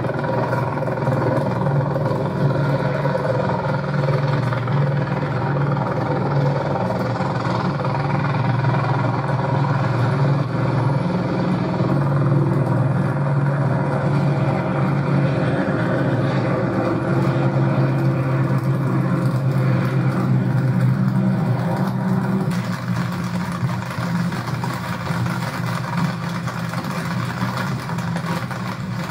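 A steady, low engine drone that runs unbroken throughout.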